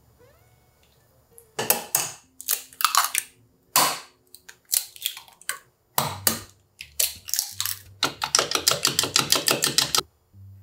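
Kitchen prep sounds: a knife chopping and scraping salted pollack roe on a plastic cutting board, then eggs being cracked, then eggs whisked rapidly in a plastic cup for about two seconds before stopping abruptly near the end.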